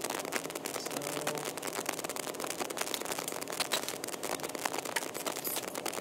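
Light handling noise as parts are fitted onto a motherboard resting on its anti-static bag: scattered small clicks and taps with soft rustling.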